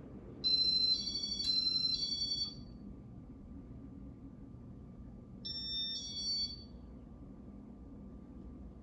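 Casablanca Panama ceiling fan's electronic chime, loud and high-pitched: a two-second run of stepped beeping notes about half a second in, then a shorter two-note chime about five and a half seconds in, over a steady low hum.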